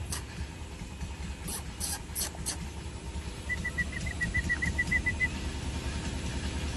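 Outdoor background noise: a steady low rumble, with a few short high chirps and, in the middle, a quick run of about a dozen even high peeps.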